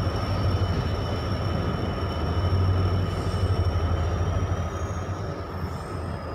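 Parcel vans of a departing train rolling slowly past along the platform: a steady low rumble of wheels on the rails with a thin, steady high-pitched squeal above it. The sound grows gradually fainter.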